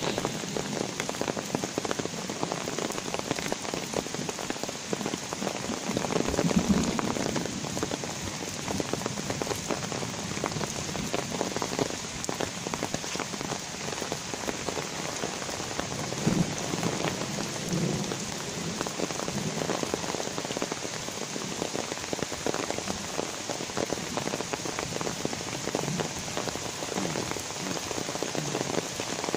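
Light rain falling steadily, with many separate drops ticking close by.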